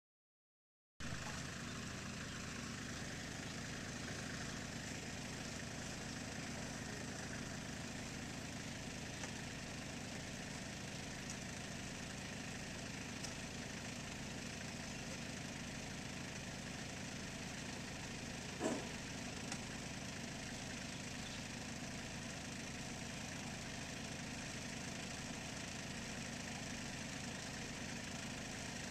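Small farm tractor engine idling steadily, starting about a second in. One brief, louder sound cuts across it about two-thirds of the way through.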